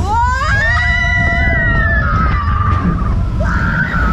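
A person screaming: one long high scream that rises sharply, holds for about two seconds and slides down, then a shorter cry near the end, over a steady low rumble of the ride.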